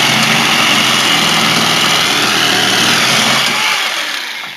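A power tool running steadily at full speed, then winding down near the end.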